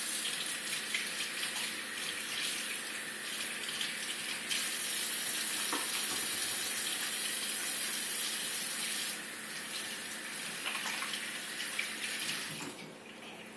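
Kitchen faucet running into a stainless steel sink while hands are washed under it. The stream is strongest for a few seconds in the middle, then eases and shuts off near the end.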